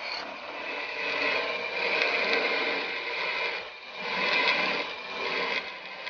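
Power tools working steel: a grinding wheel grinding a knife blade, then a drill press boring into steel. The noise swells and eases, dipping about four seconds in.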